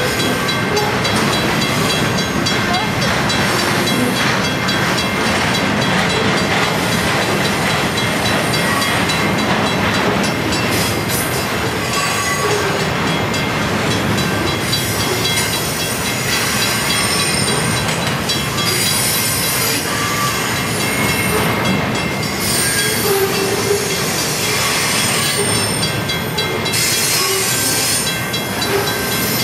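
Cars of a Union Pacific rail train rolling past close by: a steady, loud wheel-on-track rumble with faint, thin, high-pitched wheel squeal running through it.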